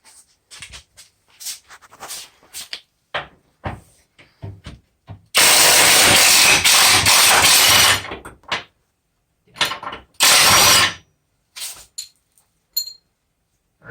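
An impact wrench runs in two loud bursts, about two and a half seconds and then about a second, undoing the rear subframe bolts. Scattered clicks and clanks of tools and metal parts fall before and between the bursts.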